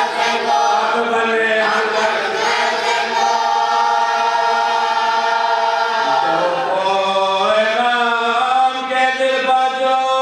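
Men's voices chanting a noha, a Shia mourning lament, together without instruments, in long held notes. About six seconds in, the pitch dips and then climbs to a new held note.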